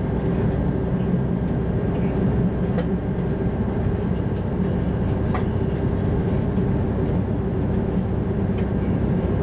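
Cabin noise inside an Airbus A330 standing with its engines at idle: a steady low rumble and hum with one steady tone, and a few faint clicks.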